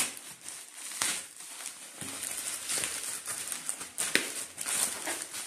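Plastic courier mailer bag crinkling and rustling in the hands as it is squeezed and pulled at to tear it open. Irregular crackles, with sharper snaps right at the start and about four seconds in.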